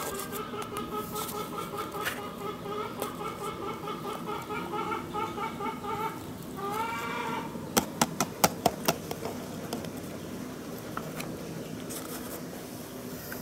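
A drawn-out, finely pulsing animal call in the background, ending in a rising and falling call about six and a half seconds in. Then a quick run of sharp plastic knocks about eight seconds in, as the plastic tub is tapped against the plastic cup to pour out the tomato mash.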